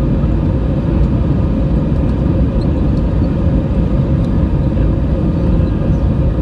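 Cabin noise of an Airbus A319 rolling on the ground, heard from a seat over the wing: a steady engine rumble with a hum of several steady tones above it.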